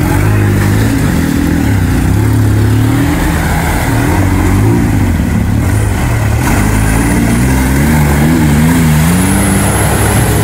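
Off-road 4x4's engine revving up and down under load as it struggles to climb a slope over a log, its revs surging and dropping repeatedly. It fails to get up for lack of a locked differential.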